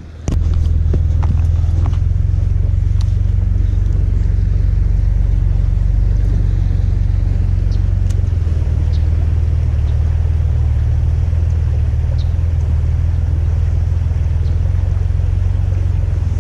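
Wind buffeting the microphone: a steady low rumble, with a few faint light ticks above it.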